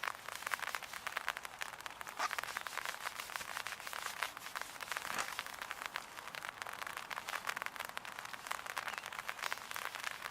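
Rain pattering: a dense, irregular stream of fine drop ticks, with a few louder single drops.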